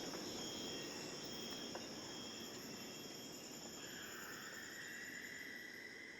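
Rainforest night insects, crickets among them, keeping up a steady high-pitched chorus. A lower buzzing joins about four seconds in.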